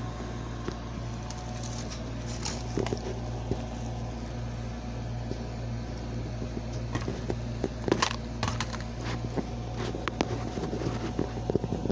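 Steady low mechanical hum in a small room, with scattered small clicks and crackles; the loudest click comes about eight seconds in.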